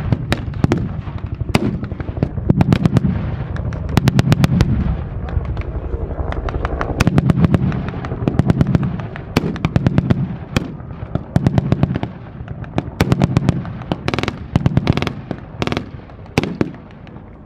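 Blank gunfire from rifles and machine guns: many single shots, with rapid bursts about four seconds in and again near the end, over a low rumble.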